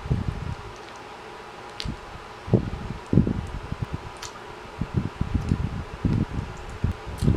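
Close-miked chewing of honeycomb: irregular soft low thuds with a few sharp, sticky clicks, over a steady background hum.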